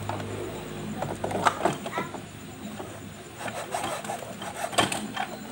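A thin metal rod scraping and rubbing against a plastic RC boat hull in short, irregular strokes, with a few sharper clicks.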